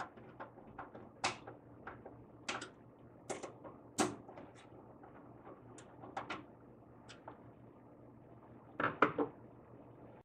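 Hands working inside a steel PC tower case around the power supply and its cables: a scattered series of sharp clicks and knocks of metal and plastic, the loudest cluster about nine seconds in, over a faint steady low hum.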